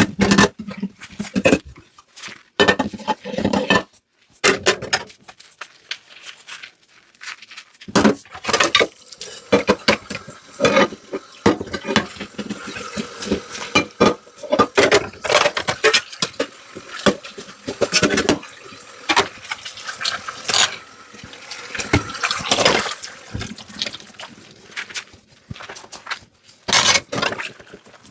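Dishes being washed by hand in a kitchen sink: repeated clinks and knocks of dishes. Tap water runs over them from about eight seconds in until shortly before the end.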